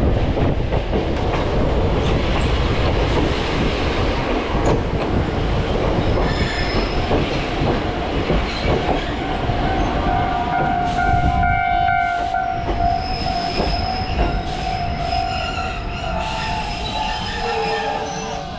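Choshi Electric Railway train running with its windows open, the rumble of wheels and motor loud in the carriage. About halfway through, a high metallic wheel squeal sets in and holds as the train eases down.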